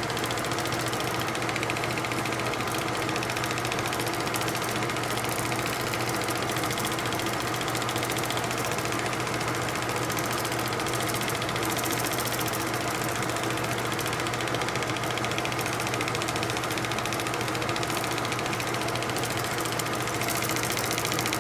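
16mm film projector running: a steady mechanical whir with a fast, even clatter from the film transport.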